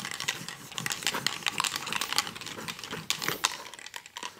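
Reusable sticky lint roller (Sticky Buddy) rolled back and forth over hairy fabric: rapid, irregular crackling ticks that thin out near the end. Its stickiness is almost gone after one wash, so it is picking up almost no hair.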